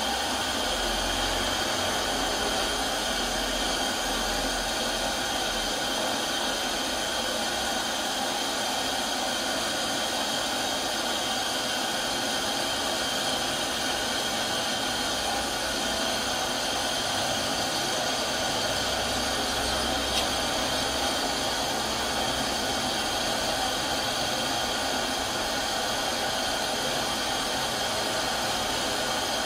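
Steady whooshing machine noise with constant tones running through it, unchanging throughout, and one small knock about two-thirds of the way through.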